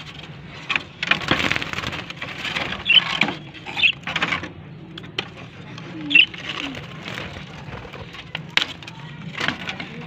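Budgerigars chirping in short calls now and then, among rustling and a few sharp clicks and knocks from handling inside a wooden wire-mesh cage.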